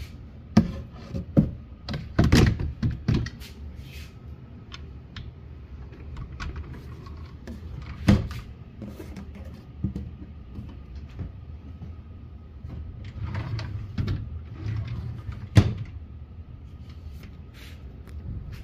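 Wooden buffet cabinet being handled: its doors and drawers opening and closing with scattered knocks and clacks, the sharpest about half a second, two seconds, eight seconds and fifteen and a half seconds in.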